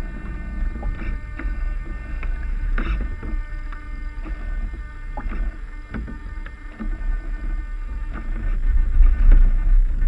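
Water slapping and gurgling against the hulls of a Mini40 sailing trimaran under way, with several sharper slaps, over a low wind rumble on the microphone that grows louder near the end.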